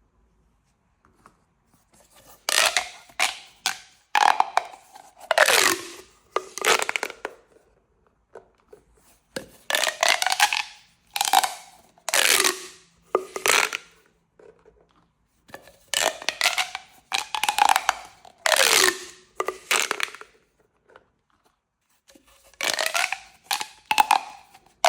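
Corrugated plastic pop tubes being stretched and squashed, each stroke a rapid run of ratcheting clicks with a sliding tone. The strokes come in groups of about four, with short pauses between groups.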